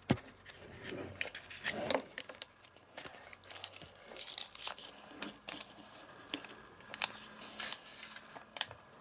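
Paper crinkling and rustling as a sheet is handled and unfolded, with irregular light clicks and taps of small plastic toy pieces on a hard tabletop.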